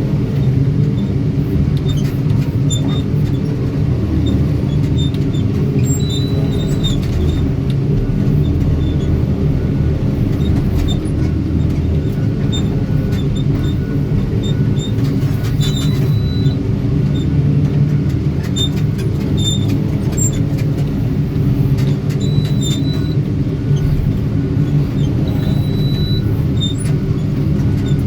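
Heavy diesel engine of an excavator or loader running steadily under load, a deep, even rumble, with short faint high beeps every few seconds.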